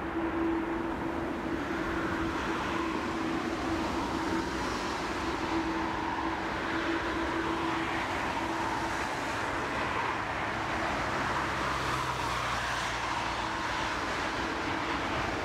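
Jet engines of a twin-engine widebody airliner running on the runway: a steady rumble with a constant hum over it.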